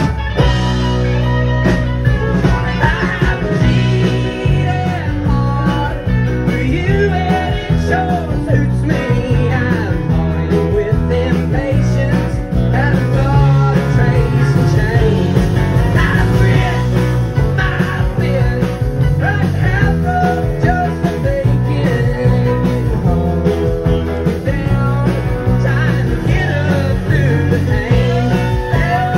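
Live country-rock band playing: electric bass, drum kit, keyboard, electric guitar and acoustic guitar, with a steady beat.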